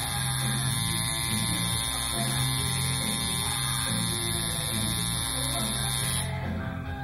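Coil tattoo machine buzzing steadily as it works, mixed with background music.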